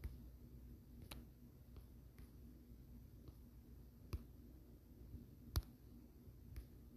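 Quiet room tone with a low hum, broken by about seven or eight short sharp clicks at irregular intervals; the loudest comes a little past the middle.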